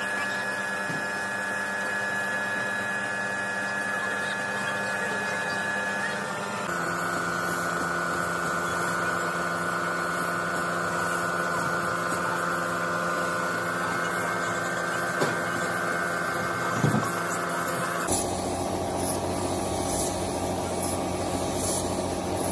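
An air compressor runs with a steady hum, feeding a spray gun that is spraying paint onto a truck cabin. The hum's tone changes abruptly twice, about six and eighteen seconds in, and a few short knocks come in the second half.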